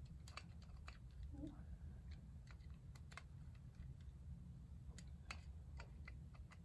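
Faint, scattered small metallic clicks from a precision screwdriver snugging miniature bolts and nuts on a brass injector flange, over a low steady hum.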